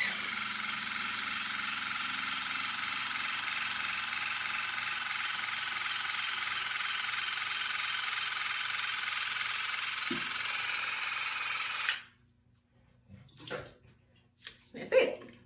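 Cordless Waterpik WP-360 water flosser running in the mouth, a steady motor buzz with the hiss of the pulsing water jet against teeth and gums. It is switched off suddenly about twelve seconds in, followed by a few faint knocks.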